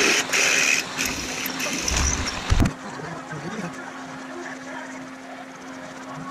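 Drill press boring a large hole into the steel end of a tube axle, the bit cutting with a rough hiss, then a sharp knock about two and a half seconds in. After that the drill press motor runs on with a steady low hum.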